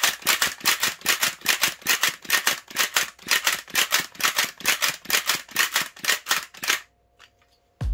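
Fast, even rattling like a shaker, about four to five strokes a second, that stops suddenly about seven seconds in.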